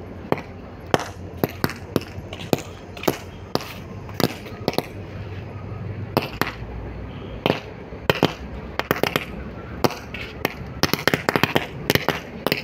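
A bundle of toy cap-gun roll caps burning, the caps going off in a long irregular string of sharp pops, which crowd into a rapid crackling run near the end.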